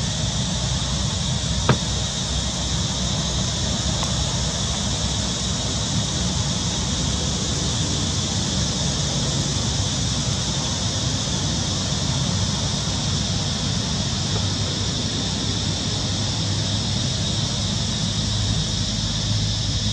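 Steady background hiss with a low hum beneath it, and one sharp click about two seconds in.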